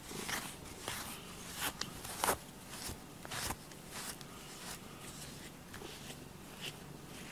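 Pink rubber grooming brush stroked through a cat's fur: short brushing strokes, roughly one or two a second, uneven, the loudest a little after two seconds and again at three and a half.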